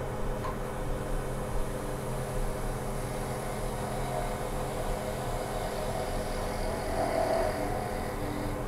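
Robust wood lathe running with a steady motor hum while a hand-held turning tool cuts the spinning wooden spatula blank, the cutting a little louder about halfway through.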